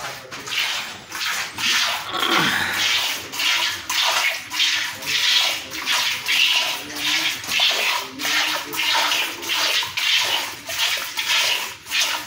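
Cow being milked by hand: jets of milk squirting into a metal pail in a steady rhythm, about two squirts a second, each one a short hiss.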